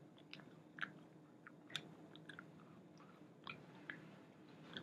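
Faint chewing and biting on a hot chicken wing: soft, irregular mouth clicks and smacks every half second or so, over a low steady hum.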